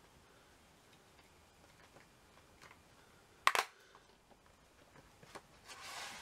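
A plastic DVD case and disc being handled: one sharp click about three and a half seconds in, then a short scraping rustle near the end.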